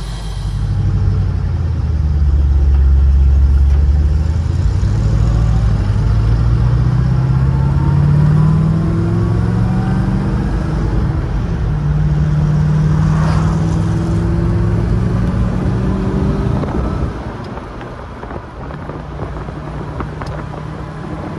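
1962 Chevrolet Corvette C1's fuel-injected V8 under way, heard from inside the cabin: the engine note climbs steadily under acceleration, drops in pitch about halfway through as it changes gear, then holds a steady pull before easing off near the end.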